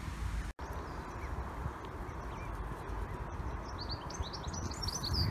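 Canada goose goslings peeping: a few faint high peeps, then a quick run of louder ones near the end, over a steady low rustling noise. The sound cuts out for a moment about half a second in.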